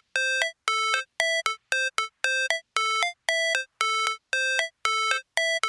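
Synthesized electronic beeping like a ringtone: a short note immediately followed by a brief higher blip, repeated evenly about twice a second.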